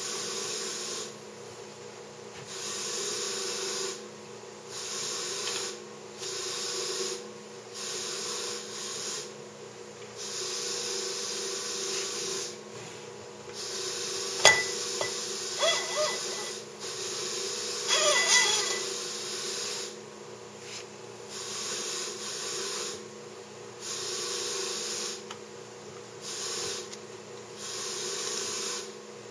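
Handling a wooden frame with a sliding wooden tray on aluminium rails: a sharp knock about halfway through, then a few light clinks and a short scrape with ringing metal, over a hiss that comes and goes every second or two.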